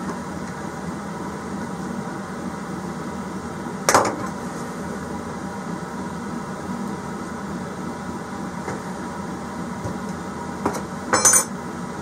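Steady low hum, with one sharp click about four seconds in and a few quick clicks near the end: parts and tools being handled as a diesel heater bracket and its plastic screws are fitted.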